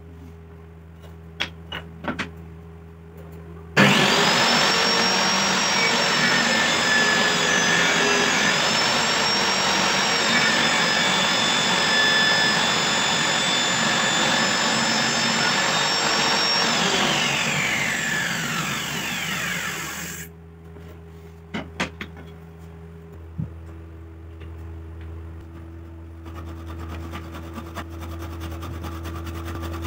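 Small table saw starting about four seconds in and running with a steady whine while a strip of wood is pushed over the low-set blade to cut a groove, the whine dipping a little under load. The motor is then switched off and the blade spins down with a falling whine. A few light knocks come before, as the wood is set in place, and again after.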